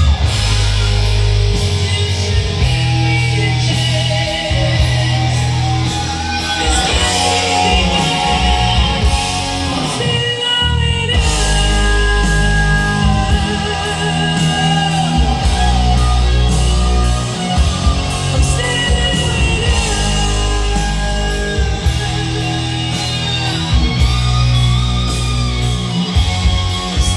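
Recorded music with singing and heavy, sustained bass notes, played at maximum volume by a Philips FWC555 mini system through Sony ZUX9 speakers.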